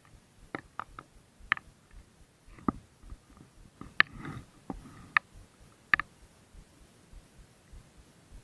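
Handling noise from a spinning rod and reel held in the hand: scattered sharp clicks and light taps, about nine in the first six seconds.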